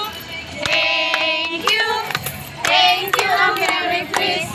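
A group of carolers singing a Christmas carol together in unison, with scattered hand claps keeping time.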